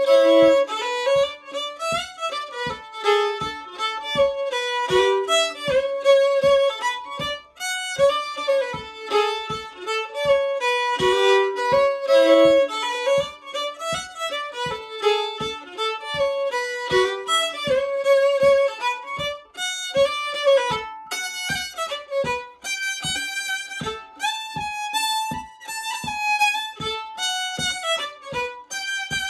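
Solo fiddle playing a traditional session tune at a slow, steady pace, with a regular tap about twice a second keeping time beneath the melody.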